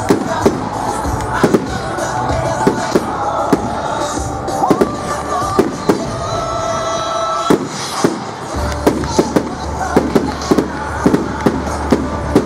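Fireworks display: rocket shells bursting in quick succession, sharp bangs one to three a second and coming thicker near the end, with music playing alongside.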